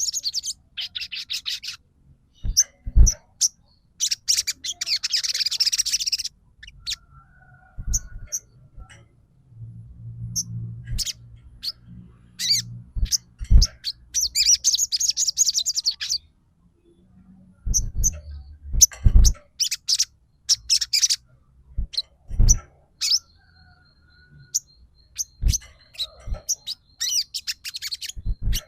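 A young sogon songbird chirping and twittering: short high notes, broken by two longer runs of rapid chattering. Sharp knocks come now and then between the calls.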